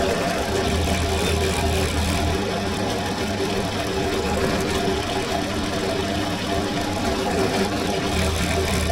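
Bench drill press running steadily, its motor humming as a fine bit drills stitching holes through a leather sheath face.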